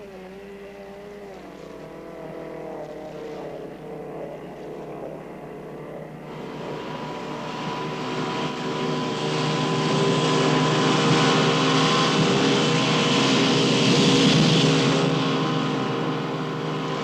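Motorboat engine running steadily, growing louder over several seconds as the boat comes closer. A rushing hiss of water joins in about six seconds in, and the sound eases slightly near the end.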